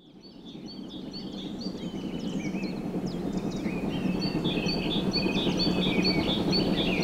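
Songbirds singing and chirping over a low, steady rumble. The whole sound fades in from silence and grows louder through the first few seconds.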